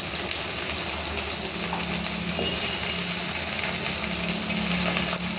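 Onions sizzling as they fry in hot oil in a pan, a steady hiss.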